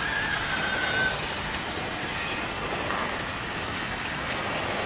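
Steady mechanical running noise, with a thin high whistle held through about the first second.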